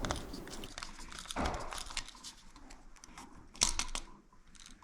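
Small clicks and scrapes of a screwdriver and wires being worked on the terminal screws of a wall light switch, with a sharper click about three and a half seconds in.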